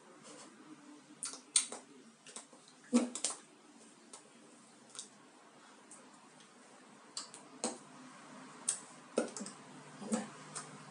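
Scattered soft clicks and taps from a person signing in sign language: hands meeting and mouth noises as she mouths the signs, about ten in all with a few sharper ones, over faint room hiss.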